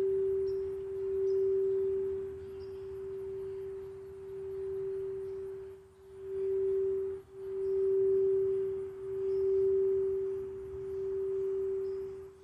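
Quartz crystal singing bowl sounding one steady, pure tone that swells and fades in slow waves, nearly dropping out twice about six and seven seconds in.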